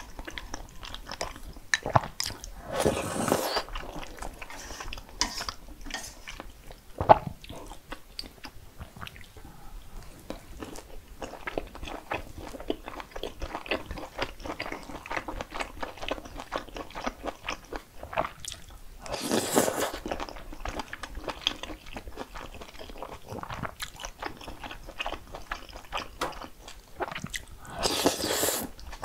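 Close-miked eating: steady crunching and chewing of crisp food, with three louder crunchy bites or slurps, one early, one in the middle and one near the end.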